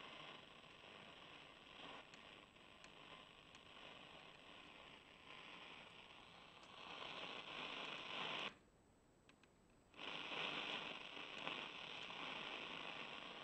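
Shortwave static hiss from a Grundig Satellit 650 receiver's speaker as it is tuned across the 13–14 MHz range. The hiss cuts out for about a second and a half partway through, then comes back.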